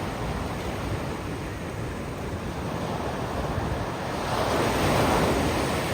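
Ocean surf washing onto a beach in a continuous rush, with a louder wave breaking and surging about four seconds in.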